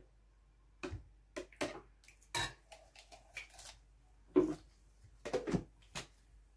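Metal ladle knocking and scraping against a glass bowl and a plastic blender jar as thick yogurt is spooned into the jar: a string of separate clinks and knocks, the loudest a little past the middle.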